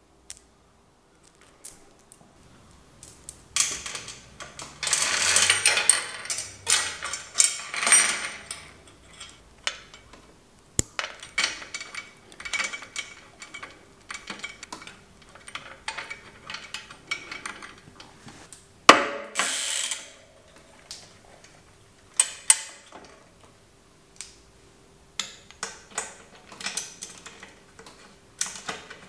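A steel KMC K610 bicycle chain rattling and clinking as it is handled and fitted onto the bike, in irregular bursts of metallic clicks starting a few seconds in. One sharp metallic knock stands out about two-thirds of the way through.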